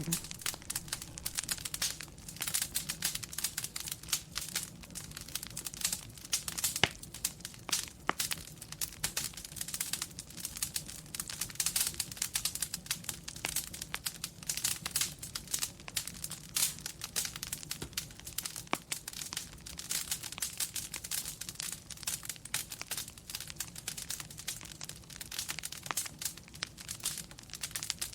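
Wood fire crackling in a fireplace: a dense, irregular stream of small pops and crackles, with an occasional sharper pop (one about seven seconds in), over a low steady rumble.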